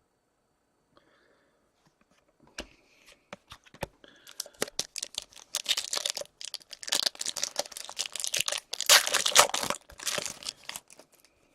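A foil trading-card pack wrapper torn open and crinkled by hand: a dense run of crackling that starts about two and a half seconds in, grows busier, and is loudest near the end before stopping.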